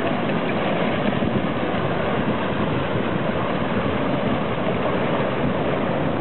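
Flash-flood front of mud, water and woody debris churning across a dry riverbed: a steady rushing noise.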